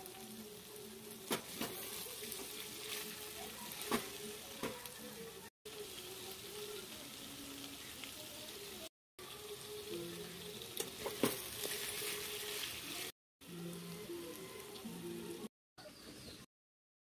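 Diced potato and brinjal sizzling as they fry in an aluminium pan, with a spatula now and then clicking and scraping against the metal. The sizzle cuts off briefly several times.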